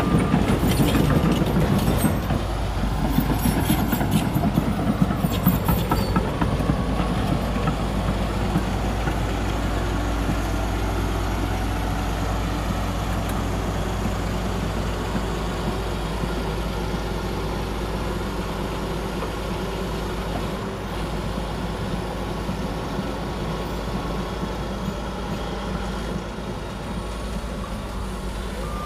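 Heavy diesel earthmoving machinery running steadily, with metallic clanking in the first few seconds and a reversing alarm beeping briefly at the start.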